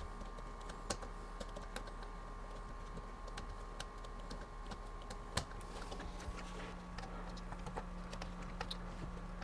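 Light, irregular clicks and ticks of a screw being turned by hand into the wall outlet's centre screw hole to fasten a plug-in outlet extender, over a faint steady hum.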